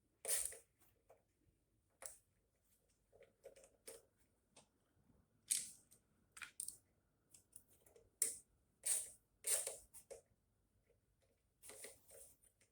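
Hand ratchet with a 5/16 socket clicking in short irregular bursts, with light clatter of small metal screws and parts, as screws are backed out of a Briggs and Stratton mower engine's airbox.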